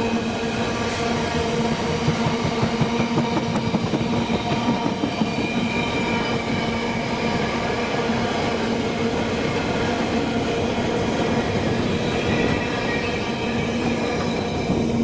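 Freight train hauled by two Class 90 electric locomotives running past: a continuous rumble of wagons on the track with rapid clattering, over steady whining tones.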